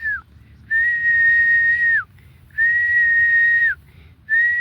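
A person whistling a series of long, steady single notes, each held a little over a second and dropping off in pitch at its end, with short pauses between them.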